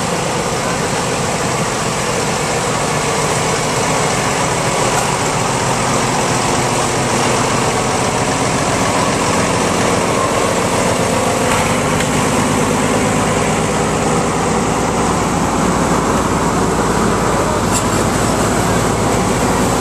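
Antique tractor engines running in a slow parade. The diesel engine of an Oliver Super 99 Diesel tractor is loudest as it passes close, its low running sound growing stronger about halfway through.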